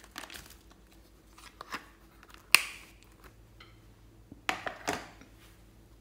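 Small plastic containers and hard bits tapping and clinking against a glass bowl, with one sharp knock about two and a half seconds in and two more knocks a couple of seconds later.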